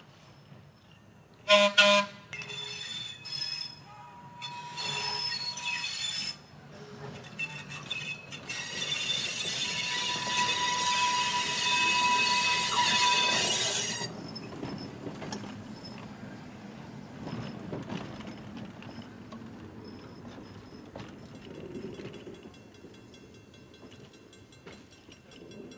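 Chicago Aurora & Elgin interurban car 20 passing on curved track. A short, loud warning blast sounds about two seconds in, then the wheels squeal on the rails, loudest from about nine to fourteen seconds in as the car goes by. It fades to a low rolling rumble.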